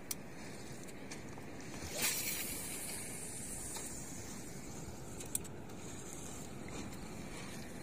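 Steady hiss of wind and sea around a small fishing boat at sea, with a brief whooshing swell of hiss about two seconds in and a couple of sharp clicks.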